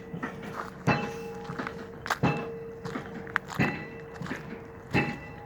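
Pile driver hammer striking a pile four times at a steady pace of about one blow every 1.4 seconds. Each blow is a heavy thunk followed by a lingering metallic ring, with lighter knocks between the blows.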